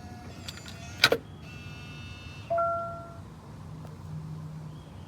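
Electronic smart-lock sounds: a sharp click about a second in, a burst of high electronic tones, then a louder two-note chime that starts suddenly and fades. A faint low motor whir follows near the end.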